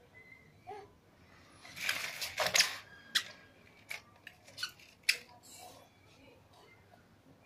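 Plastic-and-metal baby walker clattering on a concrete floor: a rattling rush about two seconds in, then a few sharp clicks and knocks as the toddler in it grips and taps the tray.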